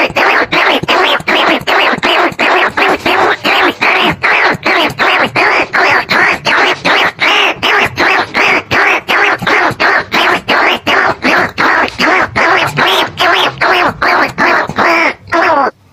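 Rat lure call for greater bandicoot rats and rice-field rats: a loud, rapid string of short calls, about four a second, with a brief pause near the end.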